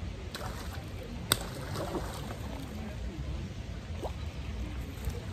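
Water splashing and sloshing at the lake edge as a hooked fish is drawn into a landing net, with one sharp click a little over a second in, over a steady low rumble.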